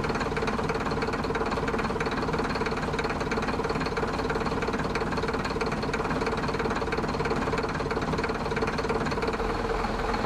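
An engine running steadily with a rapid, even knock and a steady hum.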